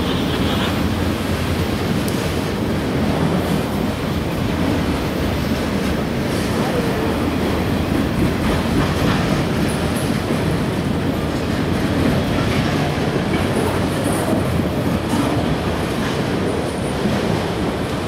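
CSX freight train of enclosed autorack cars rolling past: a steady rumble of steel wheels running on the rails.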